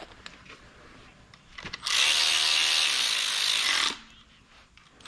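Cordless electric ratchet running a bolt down into the rear main seal housing: a steady motor whir lasting about two seconds, starting about two seconds in. Light clinks of the tool and bolts come before it.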